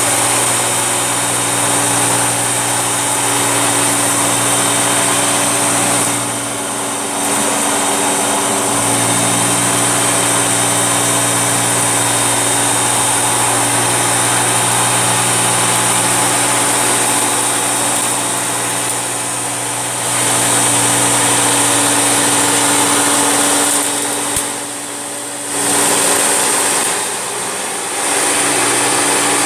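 Vacuum cleaner running steadily with a motor whine and a high airflow hiss as it is pushed through a mess of hair and cat litter. The sound drops briefly a few times, about six seconds in and again twice near the end.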